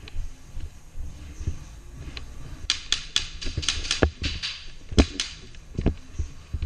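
Airsoft guns firing: a rapid string of about ten sharp snaps a little before halfway, then a couple of single shots, with low thumps of gear and movement on the microphone.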